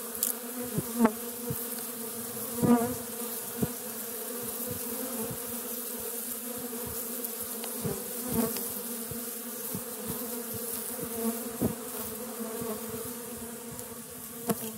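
Honey bee swarm buzzing: a steady hum from the clustered bees, with single bees flying close past and giving short louder buzzes that swell and fade, several times.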